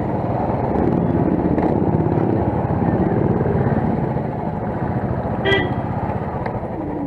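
Motorcycle engine running steadily, with a short vehicle horn toot about five and a half seconds in.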